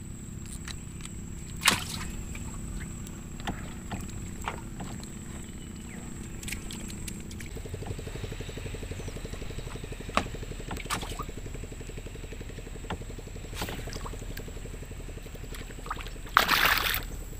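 A wooden paddle dipping and pulling through river water beside a wooden boat. The water sloshes and trickles, with occasional sharp knocks, and there is a louder splash near the end.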